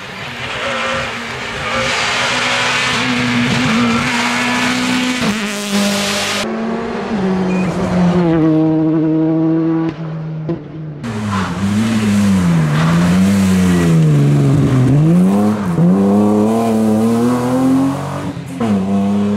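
Rally car engines revving hard on a tarmac stage. The pitch climbs through the gears and swoops down and up again on lifts and downshifts, and the sound changes abruptly about six and eleven seconds in.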